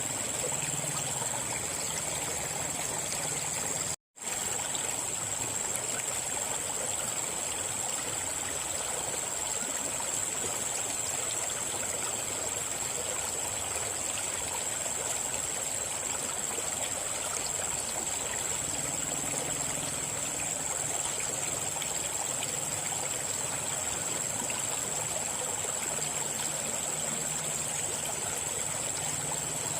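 River water flowing steadily, a constant rushing with a high steady hiss on top. The sound drops out completely for a split second about four seconds in.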